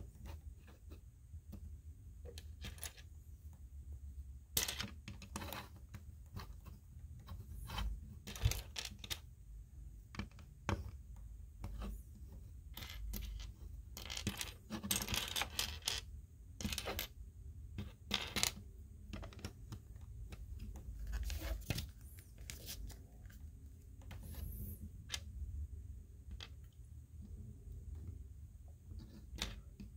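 Small plastic Lego pieces being handled and snapped together: scattered sharp clicks and light rattles, with a longer stretch of rustling about halfway through.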